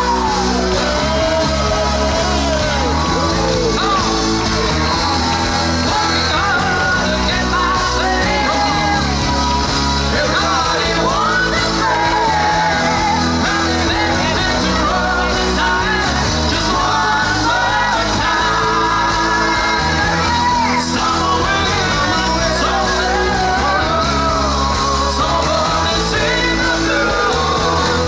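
Band music with a lead singer, loud over a steady bass line.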